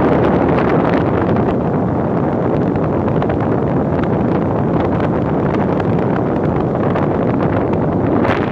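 LG 8000 BTU air conditioner running, its fan pushing a steady rush of air across the microphone.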